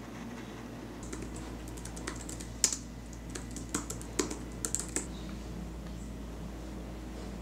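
Typing on a MacBook Pro laptop keyboard: a run of irregular key clicks, one sharper keystroke about two and a half seconds in, stopping about five seconds in. A steady low hum lies underneath.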